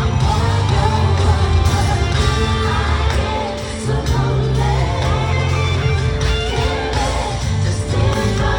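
Live pop concert music: a singing voice over a heavy, steady bass and band, played loud through a concert sound system.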